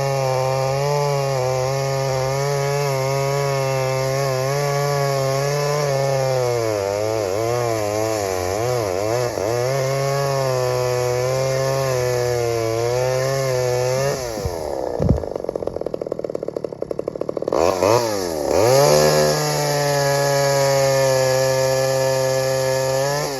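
Stihl 009L 41 cc two-stroke chainsaw running at high revs, its pitch wavering as it loads up cutting wood. About fourteen seconds in it drops to a ragged idle with a sharp knock, then revs back up and holds steady until it falls away at the end.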